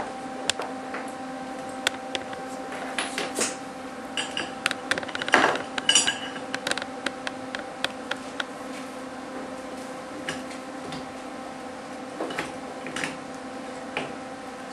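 Short pieces of steel rod clinking, tapping and scraping on the workbench as they are handled and set in place, with a busier, louder run of clanks about five or six seconds in. A steady low hum runs underneath.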